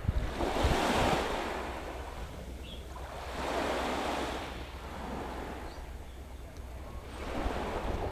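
Small waves washing onto a sandy beach, three swells about three seconds apart, each rising and fading away. Some low wind rumble on the microphone near the start.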